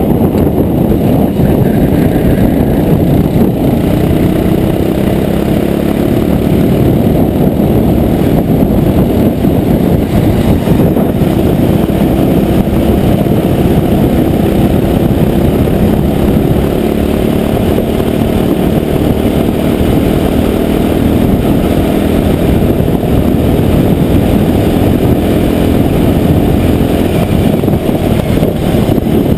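Go-kart engine running continuously under load, heard up close from the kart itself, its pitch rising and falling as the revs change through the corners.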